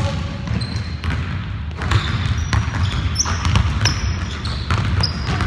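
Basketball bouncing on a hardwood gym floor during play, irregular sharp thuds, mixed with short high sneaker squeaks on the court, over a steady low rumble.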